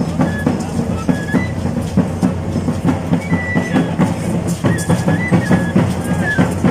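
Traditional tambor drum beating a fast, steady rhythm, with a carrizo cane flute playing short, high held notes over it.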